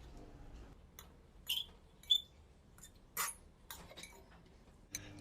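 A handful of light, scattered clinks and taps of a utensil against a bowl as instant noodles are tossed with their seasoning oil; a couple of the taps ring briefly.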